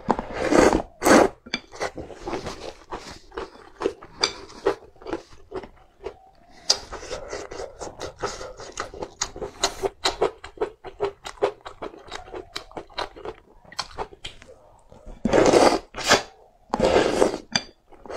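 A person slurping noodles from a bowl of broth, with wet chewing and many short mouth clicks in between. Long slurps come about half a second in and twice near the end.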